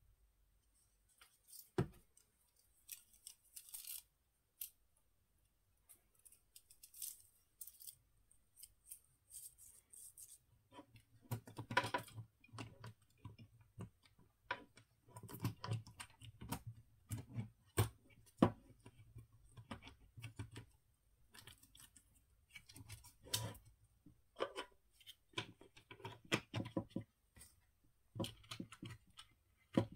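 Metal saw chain of a mini cordless chainsaw clinking and rattling in the hands as it is fitted around the guide bar and onto the drive sprocket, with irregular clicks and taps of metal on plastic. The handling is sparse at first and gets busier about a third of the way in.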